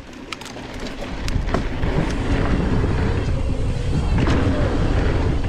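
Mountain bike being ridden down a dirt trail at speed: wind buffeting the microphone and tyres rumbling over the ground, with scattered clicks and rattles. The noise builds over the first two seconds as the bike picks up speed, then holds steady.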